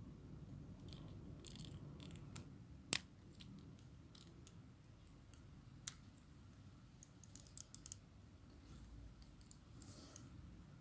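Plastic parts of a Transformers MP-39 Sunstreaker figure clicking as its legs are handled: a sharp click about three seconds in, another near six seconds, and a quick run of small clicks just before eight seconds.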